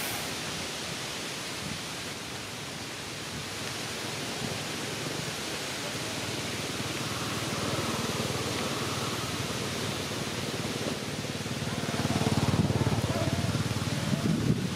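Steady outdoor background hiss. About twelve seconds in, a louder, fluttering low rumble of wind on the microphone joins it.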